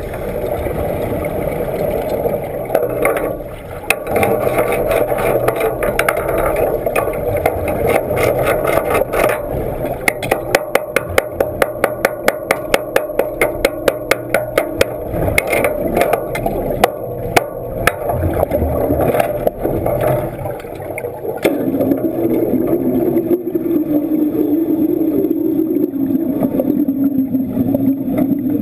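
Underwater wet welding in a flooded tank: a steady muffled rumble, with a run of rapid sharp clicks, about four a second, through the middle. Later a wavering hum comes in while the welding arc burns.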